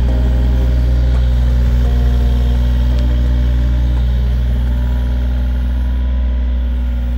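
Compact mini excavator's diesel engine running steadily with a loud, even low drone, its tone shifting slightly now and then as the digging arm works.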